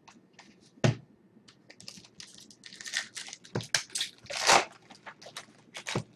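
A 2011 Topps UFC Moment of Truth trading card pack's wrapper crinkling and tearing as it is ripped open, loudest about four and a half seconds in. A few sharp clicks from the cards being handled come in between.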